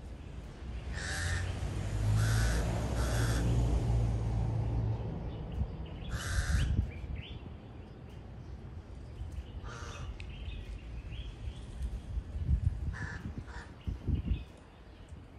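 Birds giving harsh, raspy calls: three in quick succession about a second in, then single calls spread through the rest, with a pair near the end. A low rumble runs under the first few seconds.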